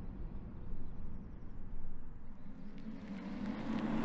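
BMW i4 electric car approaching along the road: tyre and wind noise swells through the second half, with a humming tone rising with it.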